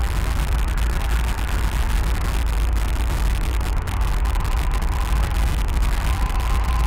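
Steady, unbroken low rumbling drone with a hiss over it, from a noise-based sound artwork; a faint thin tone rises out of it in the second half.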